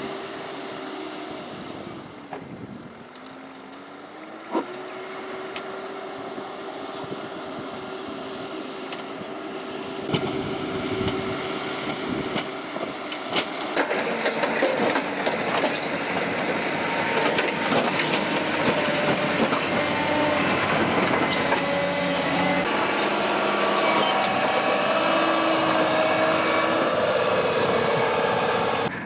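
A heavy earthmoving machine works the road: its diesel engine runs steadily, drops in pitch and climbs back about two to three seconds in, then grows louder from about ten seconds in. Metal clanks and rattles repeatedly through the second half.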